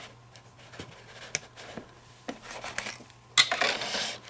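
Small plastic USB adapters being handled and plugged in at a phone: a few light clicks and taps, then a louder click with scraping and rubbing about three and a half seconds in.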